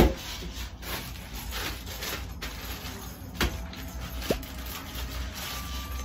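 Clear plastic takeaway bag crinkling and rustling as food is unpacked, with a sharp knock right at the start and a single click about three and a half seconds in.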